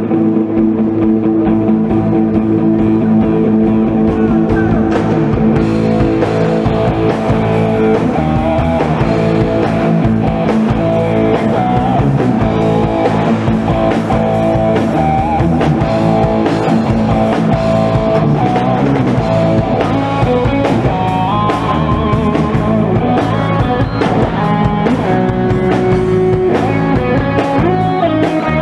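Live instrumental rock: lead electric guitar playing melodic lines over electric bass and a drum kit. The opening seconds are held notes, and the drums grow busier a few seconds in.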